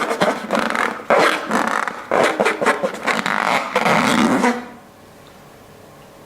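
Slime being squeezed and kneaded: irregular wet squelching and crackling, stopping abruptly about four and a half seconds in.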